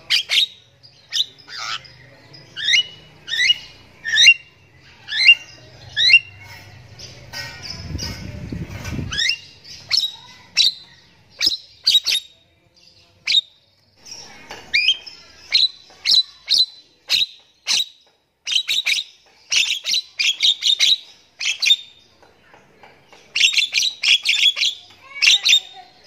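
A caged Javan myna (jalak kebo) calling without pause in a long string of short, sharp notes. Many notes sweep downward in the first few seconds, and quick chattering runs come later, densest near the end.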